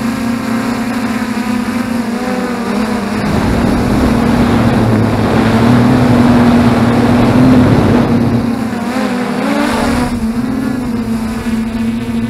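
F450 quadcopter's electric motors and propellers humming steadily, heard from the onboard camera. The pitch wavers as the throttle changes, and a rush of prop wash and wind swells to its loudest in the middle before settling.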